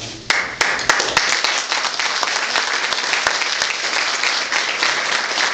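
Audience applauding: many hands clapping in a dense, steady stream that starts a moment in.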